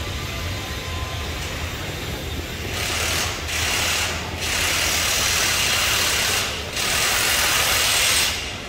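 Unseen site machinery: a steady low hum, joined about three seconds in by loud hissing noise in long stretches with short breaks, which stops near the end.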